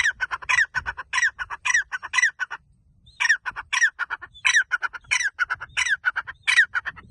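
Grey francolin (teetar) calling: a loud, harsh phrase repeated over and over in quick succession, with a brief pause about two and a half seconds in before the calling resumes.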